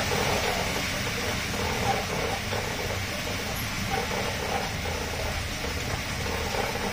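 Pit bull-type dog running in a harness on a dog exercise mill: a steady rolling clatter from the mill, with the dog panting hard.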